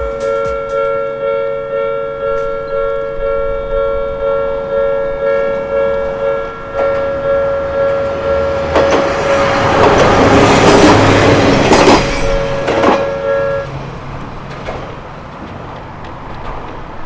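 Japanese level-crossing alarm bell ringing its repeated two-tone clang, about three strikes every two seconds. About nine seconds in, a Kominato Railway diesel railcar passes for several seconds, its engine and wheels loud, with clacks as the wheels cross the rail joints. The bell stops shortly after the train has gone by.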